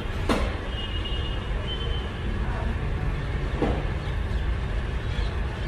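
Steady low rumble of workshop background noise, with a few faint short scrapes over it.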